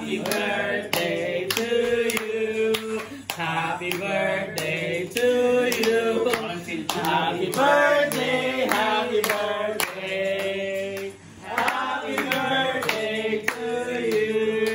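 Singing with a steady beat of about two strokes a second, with notes held long between the sung lines.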